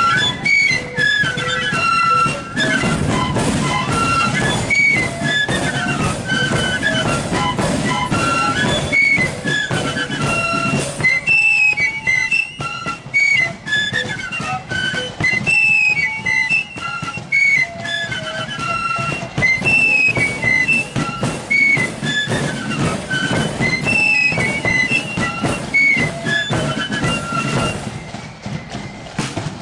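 Marching flute band playing a tune in unison on black keyed flutes, with a steady drum beat under the melody; the tune tails off near the end.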